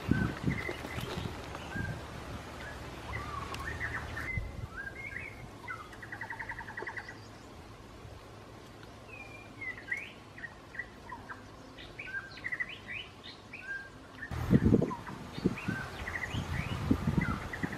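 Wild birds chirping and calling, with short whistled notes and a rapid trill heard twice. Near the end comes a cluster of low thumps and scuffs.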